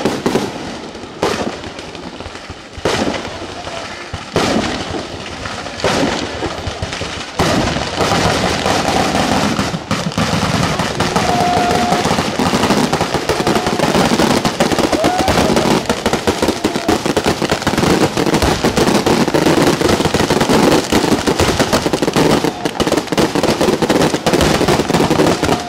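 Chiarappa batteria sanseverese, a ground-level chain of firecrackers, going off: separate loud bangs about a second apart, then from about eight seconds in a dense, continuous rapid-fire crackle of firecrackers.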